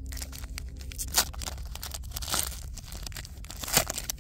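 Foil wrapper of a Topps First Edition baseball card pack being torn open and crinkled by hand, a run of crackly rips with the sharpest a little over a second in, midway and near the end.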